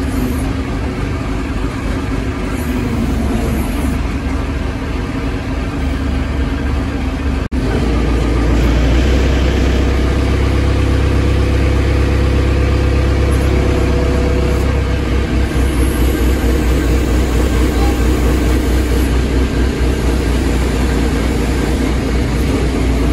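Diesel engine of a pick-and-carry mobile crane running, heard from inside the cab. After a brief break about seven seconds in, the engine comes back louder and deeper, with more throttle as the crane moves.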